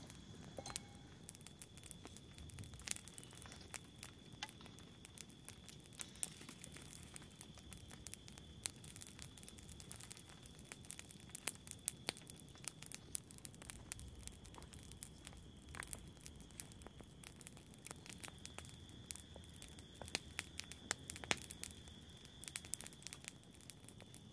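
Quiet eating sounds: a metal spoon clicking and scraping against a soup cup and a plastic cup, with soft rustles and crinkles, over a faint steady high tone.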